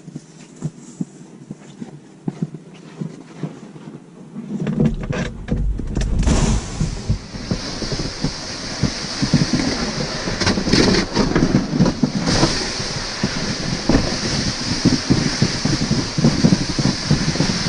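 Scattered clicks and rustling of handling, then from about five seconds in wind buffeting the microphone with a steady low rumble and a hiss.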